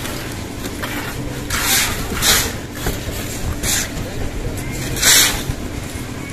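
A concrete mixer's engine running steadily, with several short scraping rushes as wet concrete is tipped and spread over the steel reinforcing mesh of a roof slab.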